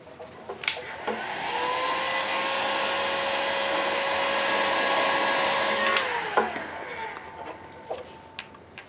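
Heat gun switched on with a click, its fan coming up to a steady whine over a rush of hot air, then switched off about six seconds in and winding down. It is heating the model engine's crankcase so the crankshaft bearing can be fitted.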